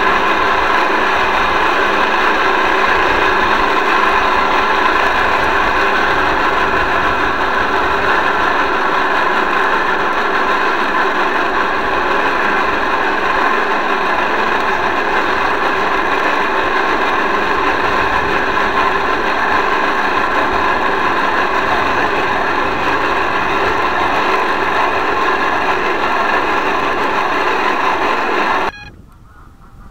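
Small boat motor running steadily with a whirring, even pitch, close to the microphone at the waterline. It cuts off abruptly near the end, leaving a much quieter outdoor scene.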